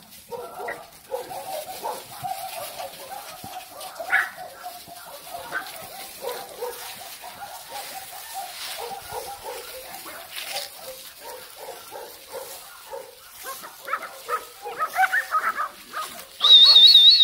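A litter of young puppies yipping and whining, many short high calls overlapping. The calls grow busier near the end, where a loud, wavering, high-pitched squeal cuts in.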